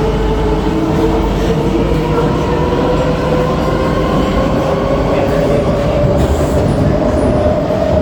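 Interior of a KSF C151B metro train running, with a steady rumble of wheels on track and an electric motor whine that rises slowly in pitch.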